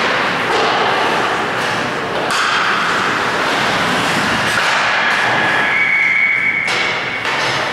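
Ice hockey game play in a rink: a steady wash of skates scraping the ice, broken by several thuds and knocks of the puck, sticks or players against the boards. A steady high tone sounds for about a second near the end.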